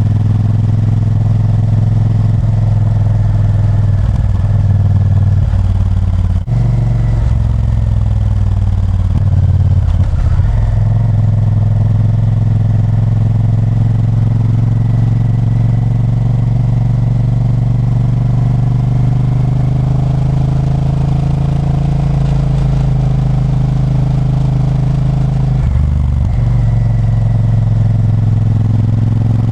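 Honda Varadero 1000's 996 cc V-twin engine running steadily under way. Its note shifts several times, with a brief dip about six and a half seconds in.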